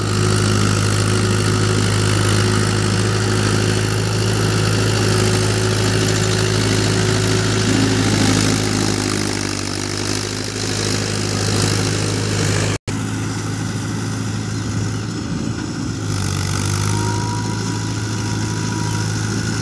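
Mahindra Yuvo 575 4WD tractor's diesel engine running steadily as it pulls a rotary tiller through flooded paddy mud. The sound cuts out for an instant about two-thirds of the way through.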